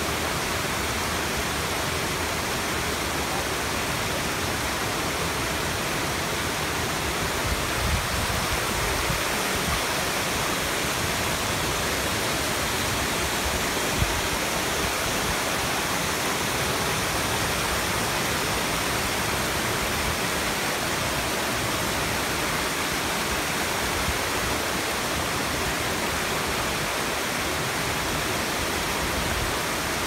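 Water rushing steadily over the rocky ledges of a river cascade, a constant even noise. A brief knock comes about fourteen seconds in.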